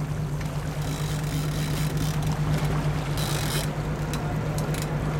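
Fishing boat's engine running steadily with a constant low hum, a short burst of hiss about three seconds in and a few faint clicks near the end.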